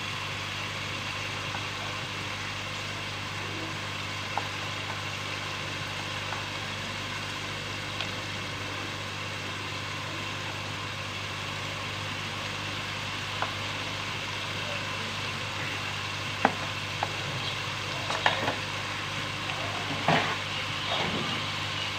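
Mutton frying with spice paste in an aluminium pot, a steady sizzle under a steady low hum. A few sharp metal clinks against the pot come in the second half.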